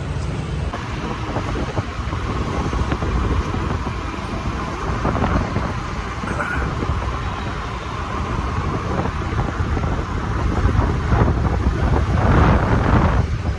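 Riding a two-wheeler in road traffic: engine and road noise, with wind on the microphone, getting louder near the end.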